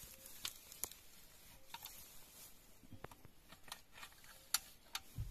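Faint, scattered clicks and light knocks as a metal scissor jack is handled and set in place under a car's sill.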